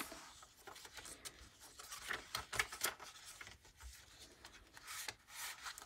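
Soft, irregular paper and card rustling with small taps as the pages of a handmade junk journal are turned and handled.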